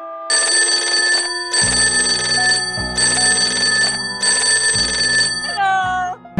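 Cartoon sound effect: a bell-like ringing in four bursts of about a second each, followed near the end by a falling, whistling glide.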